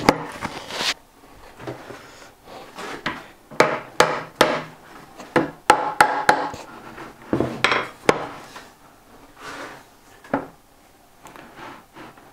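Irregular wooden knocks, taps and short scrapes as domino-jointed oak table parts are handled and pushed together in a dry fit.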